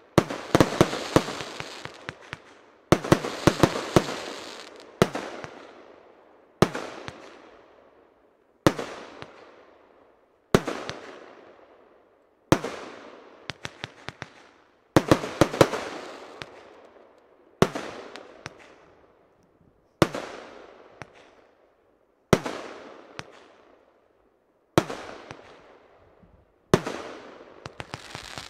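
J-Fireworks 24 Carat Gold 30 mm compound fireworks cake firing shot after shot, about one every two seconds. Each shot is a sharp bang that fades over a second or so, and a few come as several quick pops together.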